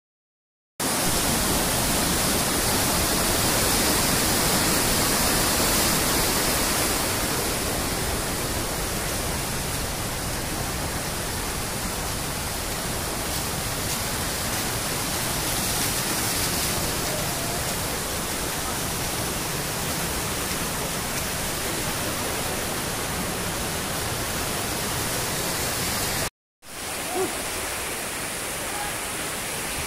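Steady rushing of floodwater pouring through the sluice gates of an overflowing river weir, loudest in the first few seconds. The sound drops out briefly twice, about a second in and near the end.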